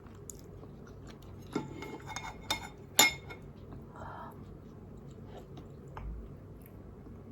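Eating utensils clinking against a bowl a few times, the loudest strike about three seconds in with a short ring.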